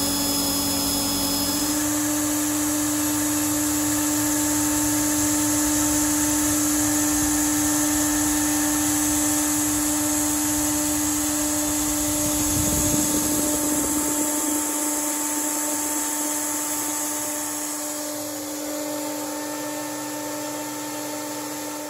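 CNC router spindle milling 20 mm C250 aluminium tooling plate with an end mill: a steady cutting tone over the steady hiss of the mist-coolant air nozzle. The tone changes about two seconds in and eases off near the end.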